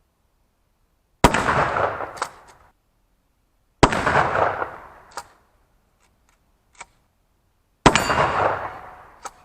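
Remington 870 12-gauge pump shotgun fired three times, a few seconds apart, each shot followed by a reverberating tail of over a second. Short sharp clicks come between the shots.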